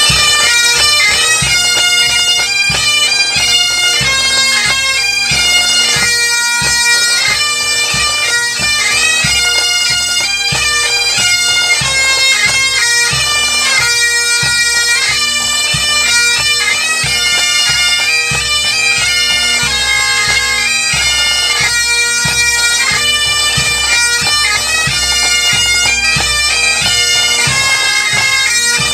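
Scottish pipe band playing on the march: Great Highland bagpipes sounding a tune over their steady drones, with the drums striking under them.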